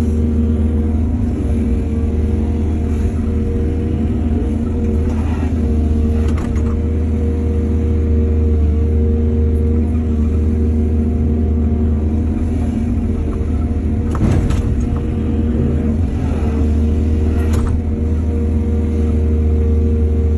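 Excavator's diesel engine running steadily under load, with a few brief noises, likely the bucket and soil, about a quarter of the way in and twice in the last third.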